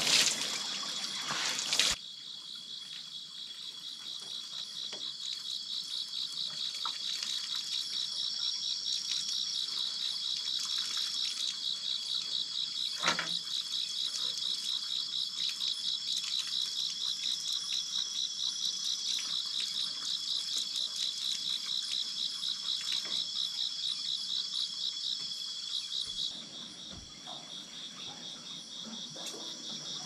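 Night-calling insects in a steady, high, rapidly pulsing trill. The first two seconds are water from a hose splashing over bare feet, and near the end the trill gives way to a smoother, continuous insect hum.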